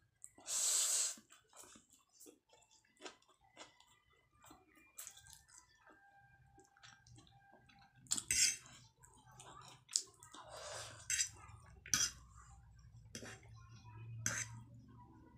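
Close-up eating sounds: chowmein noodles slurped off a fork, with wet chewing and the fork clicking on the plate. The loudest slurp comes about a second in, with more around eight and eleven seconds in.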